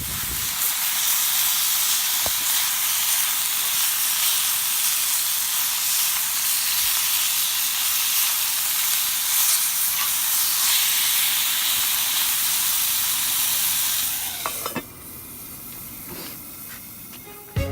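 Food sizzling on a charcoal grill, a steady hiss that drops to a quieter hiss near the end.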